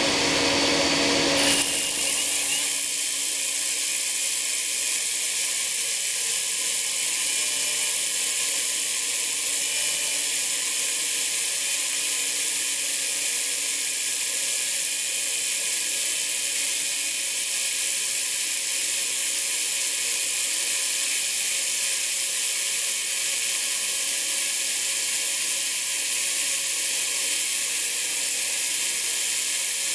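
Homemade belt sander running steadily, polishing an extrusion screw: an even, high hiss with faint steady tones, and the lower part of the sound drops away about a second and a half in.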